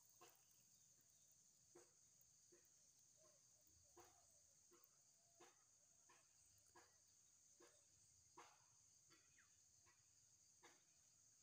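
Faint soft squelches and clicks at irregular intervals as a hand digs into wet mud under shallow water, over a steady high-pitched insect hum.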